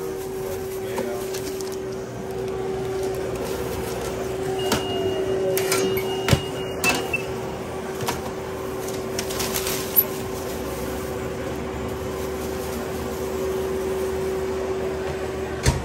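Microwave oven being worked and trays of meatballs handled: sharp clicks and knocks of the oven door and the trays over a steady hum, with a thin high tone held for about two seconds near the middle.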